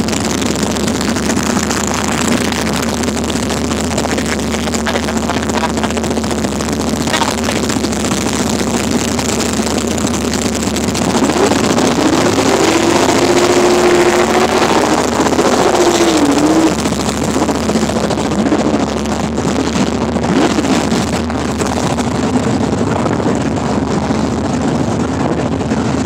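Drag race car engines running steadily at the strip, with one engine rising in pitch about halfway through, holding for a few seconds, then dropping back.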